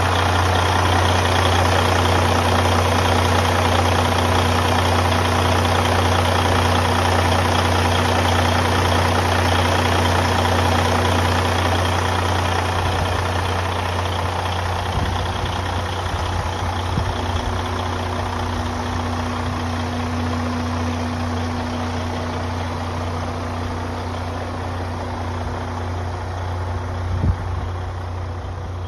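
Detroit DD16 inline-six diesel of a heavy-spec truck tractor idling steadily with a deep, even hum, growing fainter through the second half. A single sharp tap near the end.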